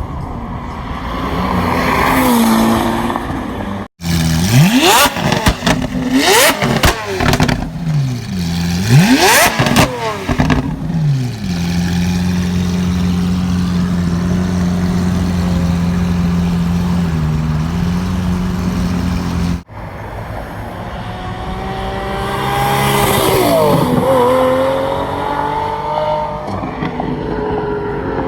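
High-performance car engines, cut together. One rises in revs. Another is blipped hard several times, its pitch shooting up and falling back, then holds a steady note for several seconds. In the last part a car accelerates toward and past the listener, its pitch dropping sharply as it goes by.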